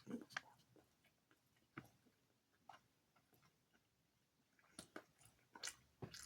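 Near silence: room tone with a few faint, scattered clicks and rustles, clustered near the start and again toward the end.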